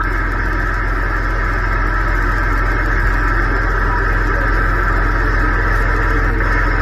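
Steady static from a CB radio receiver tuned to the 11-metre band between transmissions, with faint steady tones running through the hiss and no voice coming through.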